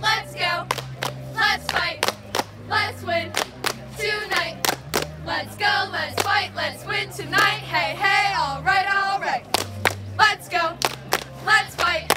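Music with choir-like singing over a sustained bass line that changes note every second or two, cut through by many sharp handclaps or beats.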